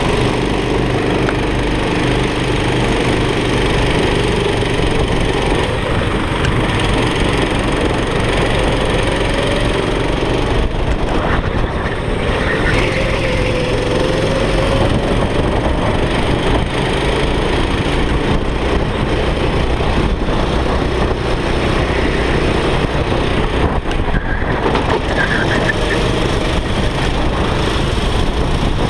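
Onboard sound of a racing go-kart: its engine running hard under a dense, steady rush of noise, the engine pitch dipping and rising a little around the middle.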